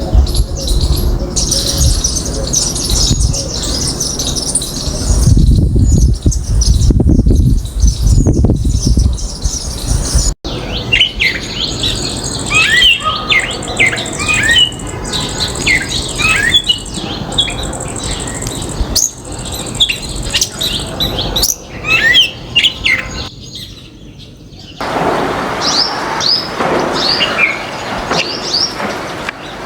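Several songbirds chirping and calling in quick, sharp notes, with a low rumble for a few seconds near the start. The sound breaks off abruptly twice.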